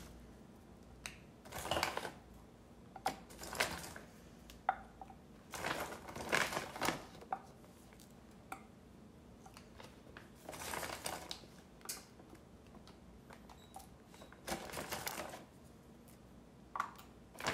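Plastic bag rustling as ravioli are taken out, with light clicks and taps as the pieces are set down in a glass baking dish, in irregular bursts.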